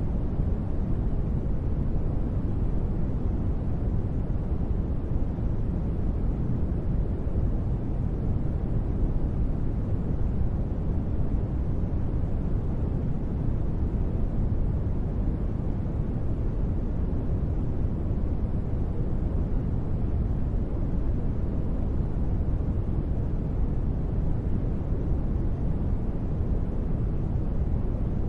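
Steady ambient noise, weighted toward the low end so that it sounds like a deep, even hiss, with no changes or events.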